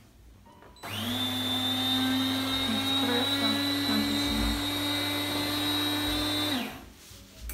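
DeLonghi Dinamica ECAM350.55 bean-to-cup coffee machine starting an espresso cycle: a motor inside it whirs steadily with a high whine, starting about a second in and stopping suddenly after about six seconds.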